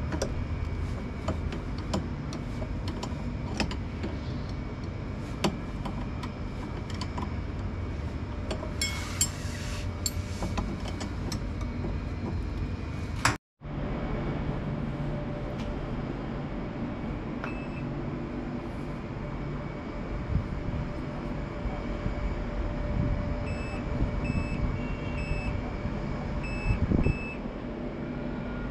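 Top-loading washing machine running with a steady low rumble and scattered clicks. The sound drops out for a moment about halfway through. Near the end come several short, high electronic beeps, typical of the machine's control panel.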